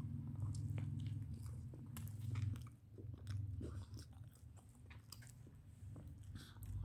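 A person chewing and biting into food, with scattered crunchy bites and mouth clicks, over a steady low hum.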